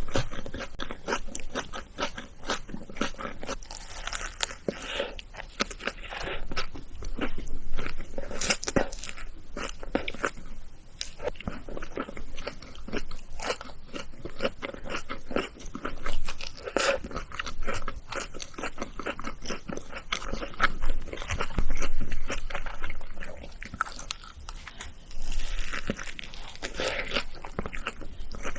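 A person biting and chewing crunchy fast food, a continuous run of crisp crunches and crackles with louder bites every few seconds.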